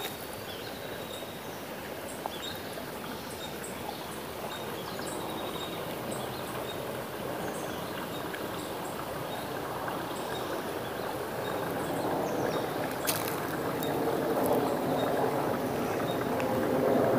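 Creek water flowing steadily, growing louder near the end.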